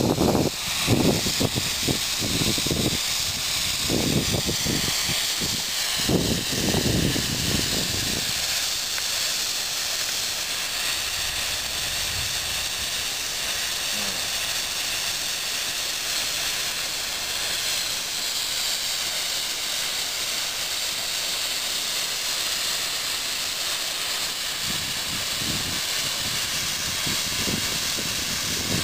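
Shay geared steam locomotive hissing steam as it moves slowly past, a steady high hiss, with low rumbling that comes and goes in the first eight seconds and again near the end.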